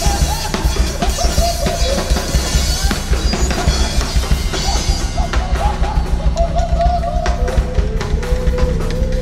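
Live experimental band music: a Premier drum kit played in quick, steady hits over a low sustained electronic drone from a modular synthesizer, with a wavering higher melodic line above.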